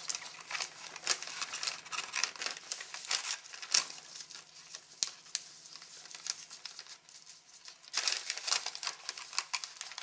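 Crinkling and rustling of a plastic MRE flameless ration heater bag and a foil food pouch being worked into it, a tight fit. Irregular crackles throughout, busiest at the start and again near the end.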